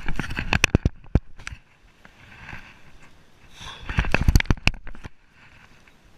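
Two bursts of sharp knocks and crackles close to the microphone, the first in the opening second and a half and the second about four seconds in: handling noise as a landed bass is gripped and released.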